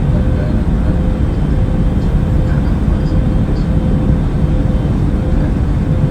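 Aircraft engine noise droning steadily: a deep, even rumble with a faint steady hum above it.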